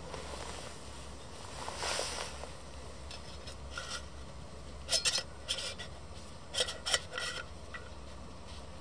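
Metal scraping and clicking as a Kovea Alpine Pot Wide cook pot with a finned heat-exchanger base is set onto a gas canister stove and shifted on its pot supports: a few sharp scrapes about five seconds in and more around seven seconds.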